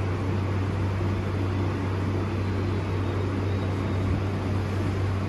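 Steady low hum with a faint even hiss, unchanging throughout: background hum of the room's machinery.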